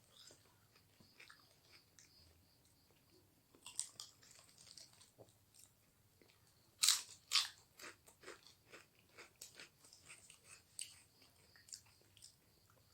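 A person eating close to the microphone: wet chewing with small crackles, and two loud crunchy bites in quick succession about seven seconds in.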